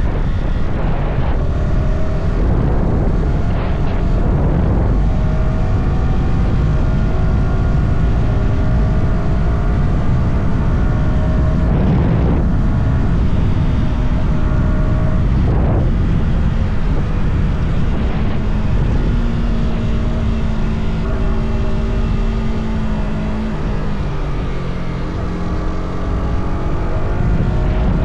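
Yamaha R125's 125 cc single-cylinder four-stroke engine through its stock exhaust, pulling up through the gears with a rising pitch and short breaks at each shift. Later the revs settle and drop as the bike slows, then pick up again near the end, over a steady rush of wind and road noise.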